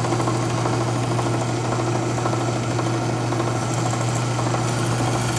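Drill press motor running with a steady hum while the flange of a steel differential cover is held against a spinning attachment in its chuck, scraping old gasket residue off the sealing surface.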